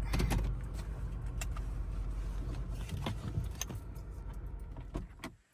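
Car running, with a steady low engine and road rumble heard inside the cabin and scattered light clicks and knocks over it; the rumble cuts off suddenly near the end.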